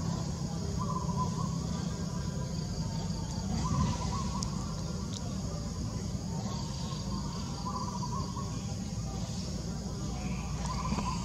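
Outdoor ambience: a bird calls in short warbling phrases every couple of seconds over a steady high-pitched drone and a low rumble.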